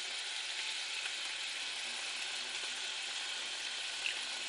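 Toasted semolina and oil sizzling steadily in a steel pot as water is poured in, the second addition of water while cooking semolina halwa. One light click about four seconds in.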